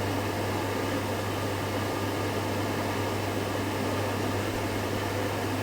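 Steady hiss of a gas burner heating a thermoacoustic Stirling engine, with a steady low hum underneath.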